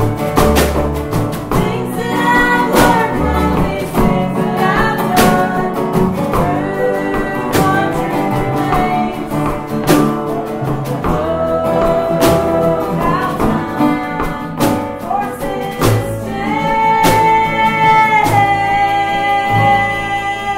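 Acoustic string band playing a bluegrass-style tune, with banjo and upright bass plucking under a woman's singing. The sung notes are held longer near the end.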